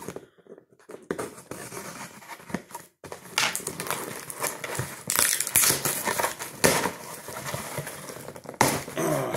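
Cardboard mailing box being torn open by hand: flaps pulled up and taped cardboard ripping, then plastic packaging crinkling and rustling as it is pulled out. A run of irregular tearing and crinkling sounds, busier from about three seconds in.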